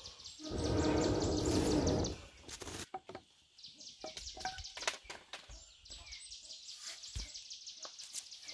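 A loud, low buzzing sound with a steady pitch for about the first two seconds. Then insects chirping in a fast, even rhythm, with a few sharp knocks near the end.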